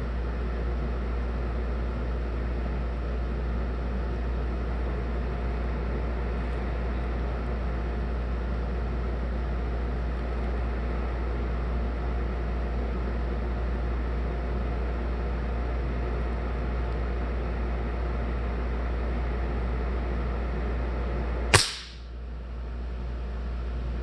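A single sharp shot from a Gamo Big Cat Whisper break-barrel spring-piston air rifle near the end, over a steady low background hum.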